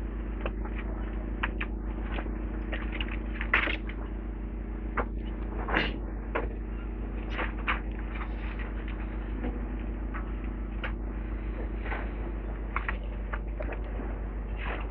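Demolition excavator running steadily with a low engine hum, while irregular sharp cracks and knocks of concrete and rubble breaking up come through every second or so.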